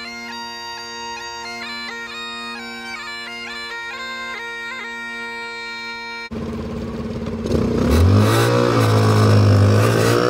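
Bagpipes playing a tune over their steady drone, cut off abruptly about two-thirds of the way through. A Peel P50 microcar's small engine then takes over, revving as the car drives off, its pitch rising and falling and louder than the pipes.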